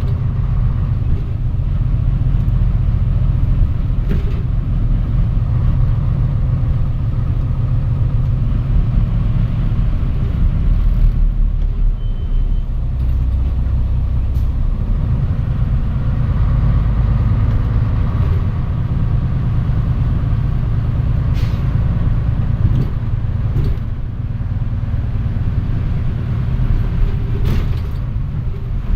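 Mitsubishi Fuso Aerostar KC-MP717 city bus heard from inside while under way: a steady engine and road rumble, with a few light clicks and rattles.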